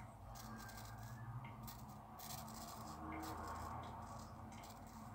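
Shavette razor blade scraping through lathered week-old stubble on the cheek, a run of short, faint rasping strokes. A low steady hum runs underneath.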